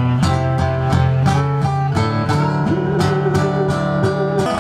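Two acoustic guitars strummed together in a steady, even rhythm of chords, with no singing.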